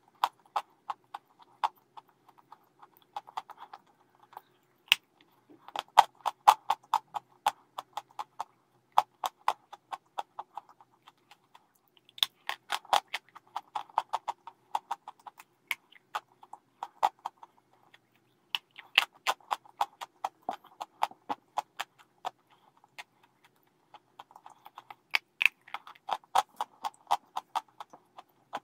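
Wet grey clay being chewed and squeezed and crumbled by hand. It makes sticky, crackly clicks in quick clusters, with short pauses between them.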